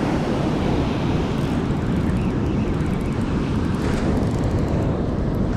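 Steady wind buffeting the microphone over surf breaking on the beach.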